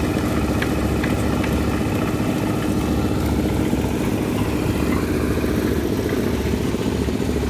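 Engine of site machinery running steadily at a constant pace, with a few light clicks in the first second and a half.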